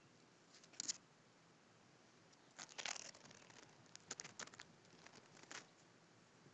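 Faint crinkling and rustling of a plastic bag being handled, in a few short bursts, the longest about three seconds in, followed by a cluster of small clicks.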